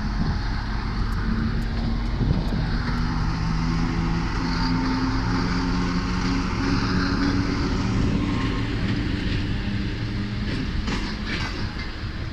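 2M62U diesel locomotive's two-stroke V12 diesel engines drone under load as it pulls away, the engine note stepping slightly up and down. Near the end, wheels click over the rail joints as the passenger cars roll past.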